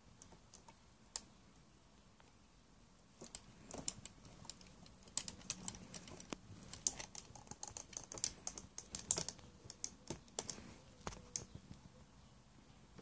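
Faint, quick, irregular clicking and rattling of hard plastic Transformers action-figure parts as the figures are handled and moved. The clicks begin about three seconds in and die away near the end.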